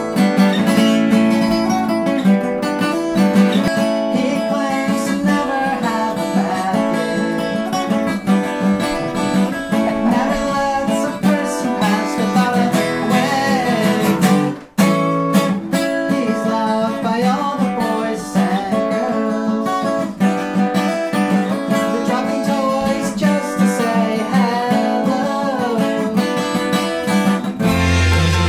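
Acoustic guitar strummed and picked through a song, with a man singing along; the playing breaks off briefly about halfway through.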